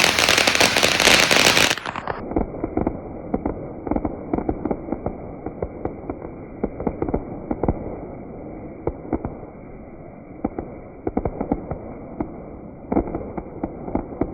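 Diwali fireworks crackling and popping. A loud, dense hissing crackle lasts about two seconds, then the sound turns duller, with many quick pops and crackles going off in rapid succession.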